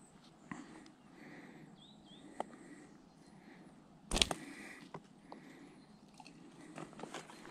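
A fishing catapult is released a little over four seconds in: one sharp snap of the elastic firing a pouch of corn loosefeed. Around it are small handling clicks and rustling, with a few faint bird chirps.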